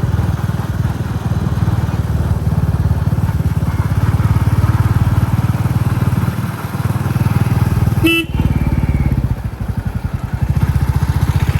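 Royal Enfield Classic 350's single-cylinder engine thumping steadily under way, with a short horn beep about eight seconds in. A little after the beep the thump eases off, its separate beats standing out, then picks up again.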